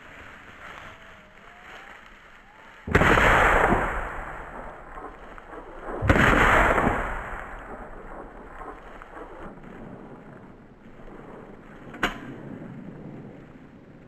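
Two shotgun shots about three seconds apart, each a sharp blast that dies away over a second or so, fired at a flushed quail. A single sharp click near the end.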